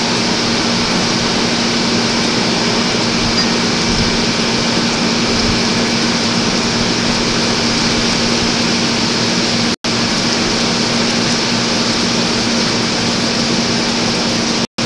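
Hurricane wind and heavy rain: a steady, dense hiss with a low hum underneath. The sound cuts out for an instant about ten seconds in.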